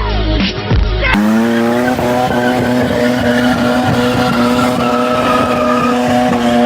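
Music for about the first second, then a car engine that climbs quickly in pitch and is held at high revs at a steady pitch for several seconds before cutting off abruptly.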